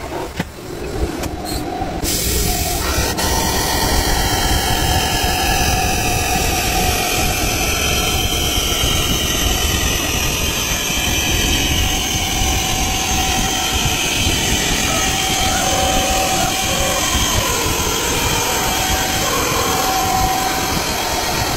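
Alloy wheel spinning on a diamond-cut wheel lathe while the cutting tool faces it, a steady machining noise. It builds over the first two seconds, then holds level with a faint ringing tone running through it.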